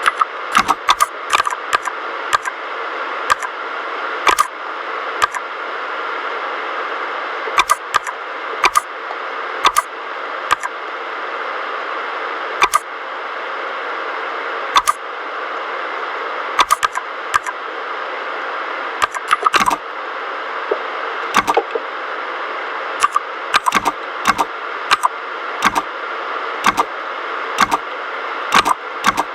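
Typing on a mechanical keyboard with linear red switches: irregular keystrokes, some single and some in quick runs, over a steady background hiss.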